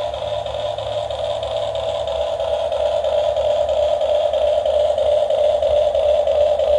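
Steady whine of a radio-controlled model's small electric motor, growing a little louder as it runs.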